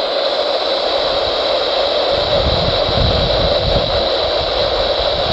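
Radio static: a steady hiss from a weather radio receiver on a weak signal, with a low rumble coming in about two seconds in.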